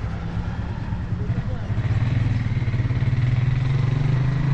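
A small engine running nearby. It grows louder about two seconds in, with a steady low hum that rises slightly in pitch.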